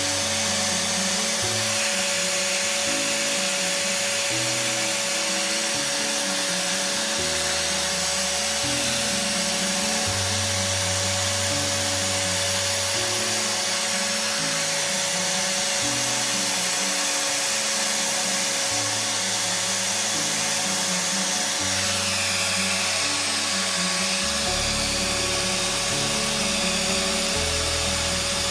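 Old angle grinder converted into a die grinder, running with an aluminium oxide grinding wheel in its collet: a steady high-speed motor whine, unchanging in pitch, over background music.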